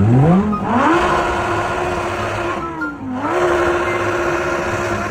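A high-speed motor revving up to a steady high pitch, dipping briefly about three seconds in and then spinning back up and holding.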